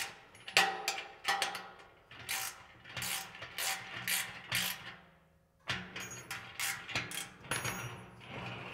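Ratcheting wrench clicking in quick back-and-forth strokes as it tightens the nuts on steel caster brackets, with a short pause about five seconds in before the strokes start again.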